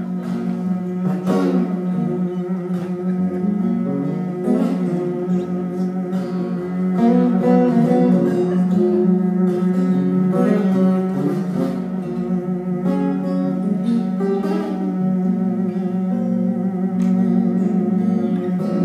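Acoustic guitar played live through the hall's sound system, a picked and strummed instrumental passage with no singing. A steady held low tone sounds underneath throughout.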